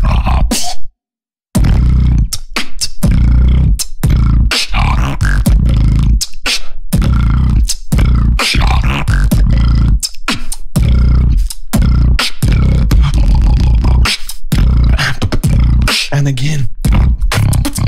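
Beatboxing into a handheld microphone: a fast, rhythmic vocal beat over deep, heavy bass. The sound cuts out completely for a moment about a second in, then the beat carries on.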